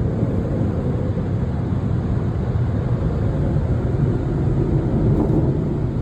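Automatic car wash's air dryers blowing steadily on the car at the drying stage.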